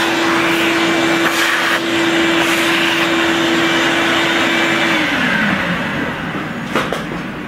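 A high-speed electric motor running with a steady hum, then switched off about five seconds in, its pitch falling as it winds down. A single sharp click near the end.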